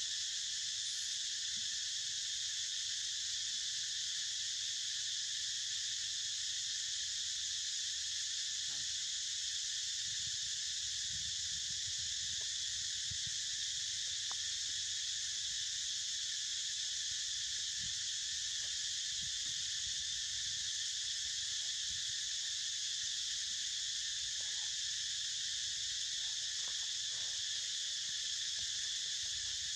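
Steady, high-pitched insect chorus, unchanging in loudness, with a few faint low knocks and rustles.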